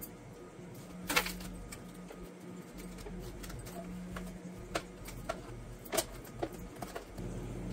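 Aluminium foil takeout tray and its foil lid handled and pressed shut, giving a series of sharp crinkles and clicks. The loudest come about a second in and about six seconds in. Under them runs a steady low hum.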